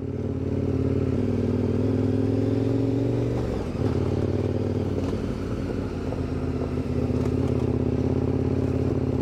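KTM 1090 Adventure R's V-twin engine running under way on a gravel track. Its note climbs slowly, drops sharply about three and a half seconds in, then holds steady at a lower pitch.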